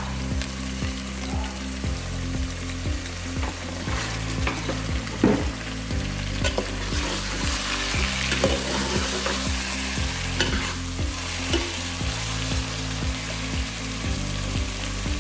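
Raw chicken pieces sizzling in hot oil and softened onions in an aluminium pot, stirred with a steel spoon that scrapes through the pieces and knocks against the pot a few times.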